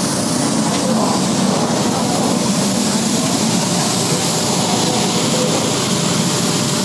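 Automatic car wash's high-pressure underbody jets spraying water up under a car: a steady hiss of spray over the even hum of the machine.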